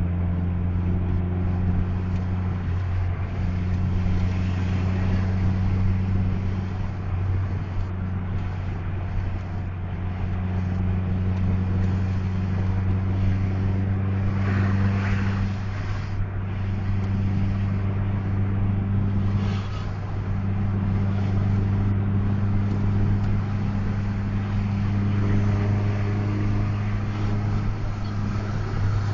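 Bus engine running with a steady low drone, its upper hum dropping out briefly a few times.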